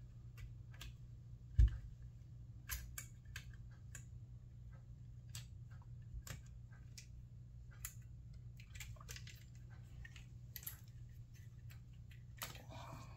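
Small clicks and knocks of a copier fuser assembly's metal frame and plastic guide being handled and pried apart by hand, with one louder knock about a second and a half in and a brief scrape near the end, over a steady low hum.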